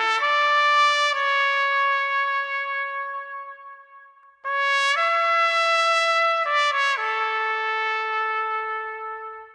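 Solo trumpet playing the song's intro melody: two phrases of a few notes, each settling into a long held note that fades, with a brief gap between them.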